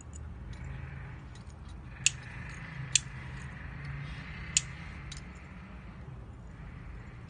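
Sharp clicks as a green chalcedony bangle with silver fittings is handled and turned in the fingers. Three loud clicks come about two, three and four and a half seconds in, with a few fainter ticks, over a low steady hum.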